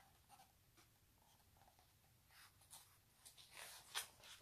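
Faint rustling of a hardback picture book's paper page being turned, a few soft swishes in the second half, the loudest near the end.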